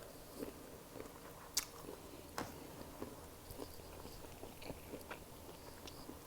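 A person chewing and biting into a seafood boil of shrimp and sausage close to the microphone: faint wet mouth sounds with scattered small clicks, two sharper ones about a second and a half and two and a half seconds in.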